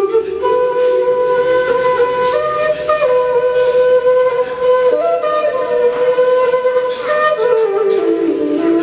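A long end-blown bamboo flute playing a slow solo melody of long held notes, stepping down to lower notes near the end.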